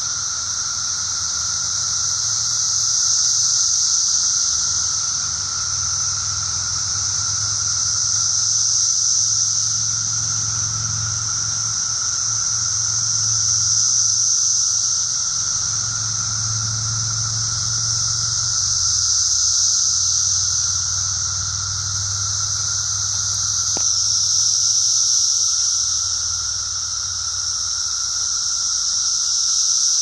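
A chorus of cicadas droning continuously from the trees: a shrill high drone with a lower steady buzz beneath, swelling and fading in waves every five seconds or so.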